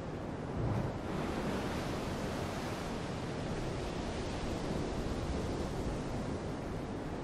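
Steady rushing noise of wind and open sea, with a brief low buffet of wind on the microphone about a second in.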